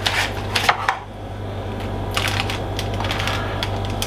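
Metal spoon scraping and tapping over crusty halved baguettes as garlic oil is spread with the back of the spoon. A quick run of short clicks and scrapes comes in the first second, then softer scrapes, over a steady low hum.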